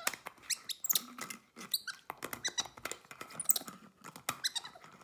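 White-faced capuchin monkey giving a string of short, high-pitched squeaks and chirps, mixed with small clicks of a plastic bottle cap being handled.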